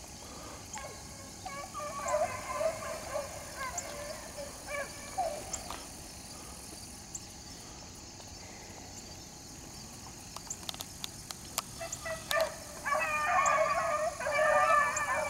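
A pack of rabbit hounds baying as they run a rabbit's track: the voices come in bursts for the first few seconds, drop away, then swell into a fuller chorus from about thirteen seconds in. There are a few sharp clicks shortly before the chorus returns.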